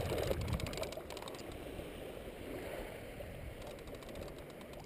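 Shallow water sloshing and splashing around wading legs, with a low splash or bump right at the start.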